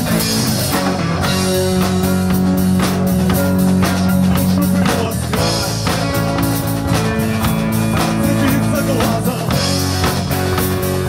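Rock band playing live: drum kit keeping a steady beat under bass guitar and electric guitar, with held chords.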